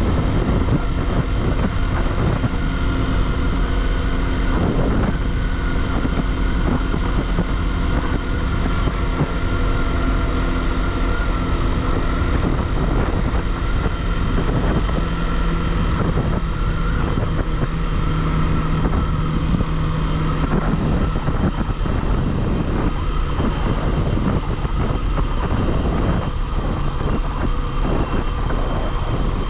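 Motorcycle riding on the road: steady engine running under load mixed with loud rushing wind and road noise, the engine tone holding for several seconds at a time and settling lower around the middle.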